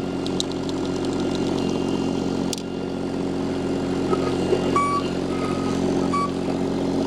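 Mini skid steer loader's diesel engine idling steadily, with a few sharp clicks over it.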